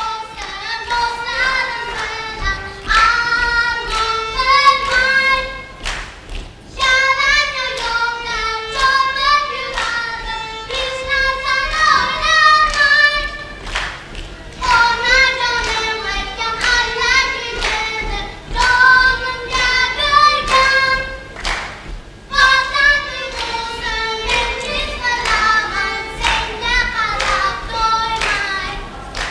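A child's voice singing a song, with other children joining in, over accompanying music with a steady beat.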